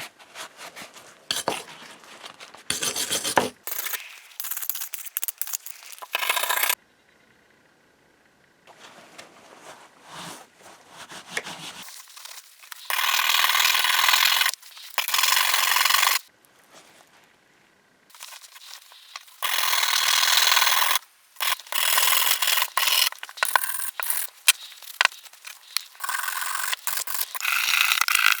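Abrasive scrubbing on the rusty metal parts of a vintage pinking machine, in stop-start strokes of one to three seconds with short pauses between them.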